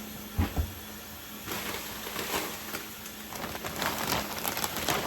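Irregular rustling and crinkling of handled packaging as spoiled food is cleared out, with two dull thumps about half a second in.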